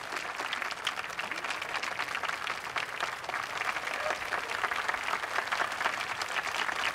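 A crowd applauding: many hands clapping in a dense, continuous patter that grows a little louder in the second half.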